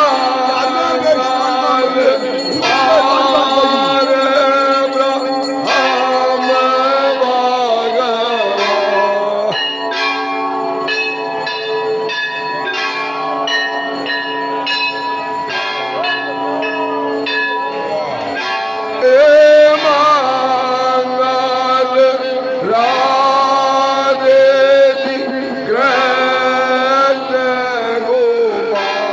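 Aarti hymn being sung, with temple bells ringing. In the middle of the stretch the singing drops back and the bells are struck in a steady rhythm, about two strokes a second.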